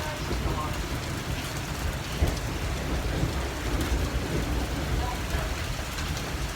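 Heavy rain mixed with hail coming down steadily, with scattered small ticks from stones striking, a low rumble underneath and one sharp knock about two seconds in.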